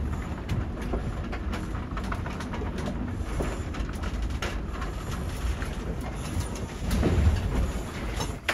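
Sailboat under way in strong, gusty wind: a steady rush of wind and water noise with a low rumble and a run of small knocks and rattles from the boat, and a louder surge about seven seconds in.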